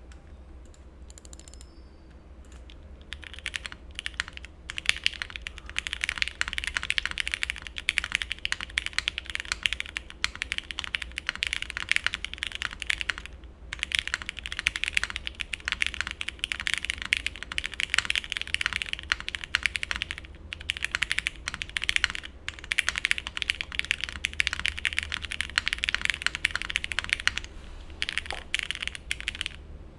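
Typing on a TGR Jane V2 ME mechanical keyboard with Cherry MX2A switches on a polypropylene plate and GMK doubleshot ABS keycaps: fast, continuous, clacky keystrokes that start about three seconds in and pause briefly twice. A steady low rumble of highway traffic sits underneath.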